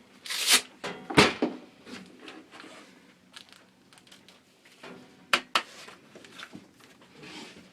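Handling noises from sanding gear being picked up and set up while the sander is not running: a short scratchy rasp near the start, a sharp knock about a second in, two quick clicks a little after five seconds, and light rustling between.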